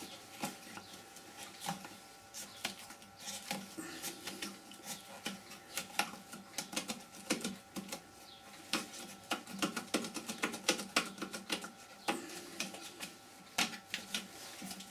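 Wood lathe running with a faint steady hum while a turning tool cuts the spinning green wood, giving a rapid, irregular patter of sharp clicks.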